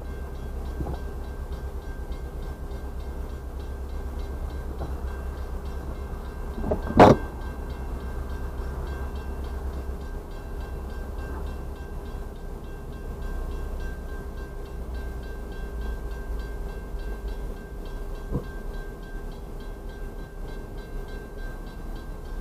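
Railroad grade-crossing warning bell ringing steadily over a low rumble. A single sharp knock, the loudest sound, comes about seven seconds in.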